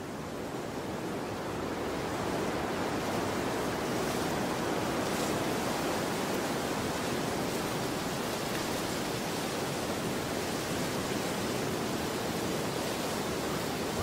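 Steady rushing noise with no pitch to it, swelling over the first few seconds and then holding even.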